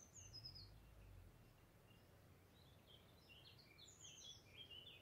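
Faint birdsong: short, quick, high chirping notes, a few just after the start and a busier run of chirps in the second half, over a low background rumble.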